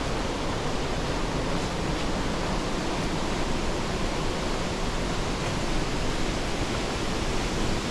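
Pailón del Diablo waterfall on the Río Verde rushing steadily: an even, unbroken wash of falling water.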